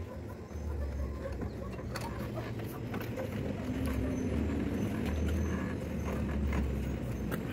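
A steady low rumble runs throughout, with a few faint clicks as wire ties on wooden formwork are twisted tight with a hammer used as a lever.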